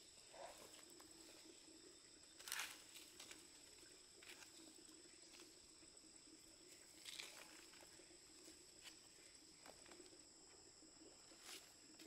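Near silence: faint rural ambience with a steady high insect drone and a few brief rustles or knocks, the loudest about two and a half seconds in.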